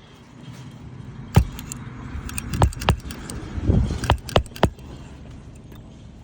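Hammer driving roofing nails into an asphalt shingle: about six sharp strikes in two irregular groups, with faint metallic rattling and rustling between them.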